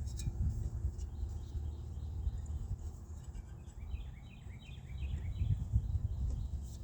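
A bird chirping in a quick series of repeated notes about four seconds in, over a low steady rumble.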